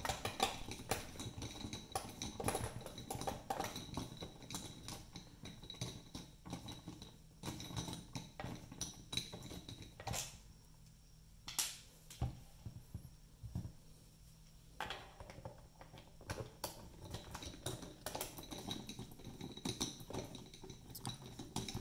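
T15 screwdriver turning screws out of the plastic back of a Nonin 7500 pulse oximeter monitor: irregular small clicks and light metal-on-plastic scraping, with a quieter pause a little before the middle.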